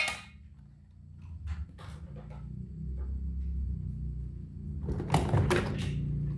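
Scattered light clicks and knocks, like objects being handled and set down, over a low steady hum; a cluster of louder clicks comes about five seconds in.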